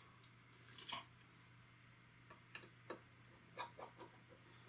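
Faint, scattered clicks and ticks of a small precision screwdriver working the screws of an iPod Touch's internal metal plate.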